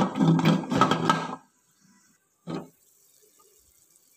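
Pressure cooker whistle: a loud burst of steam hissing for about a second and a half, then a short second burst about a second later.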